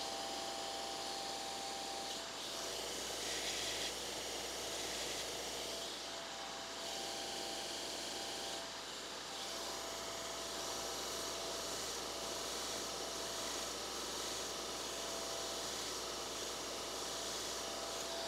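Grizzly combination belt sander running steadily, grinding the end of a steel hex key down to length.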